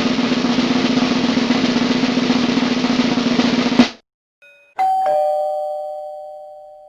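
A snare drum roll that ends in a single sharp hit about four seconds in. Then a two-note doorbell chime, ding-dong, the second note lower, ringing on and fading.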